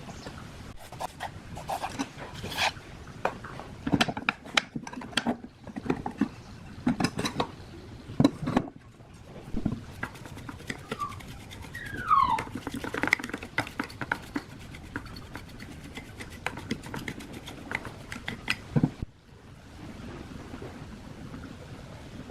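Irregular clicks, taps and knocks of hand tools and old ceiling-fan parts being handled during disassembly, with a short falling squeak about twelve seconds in.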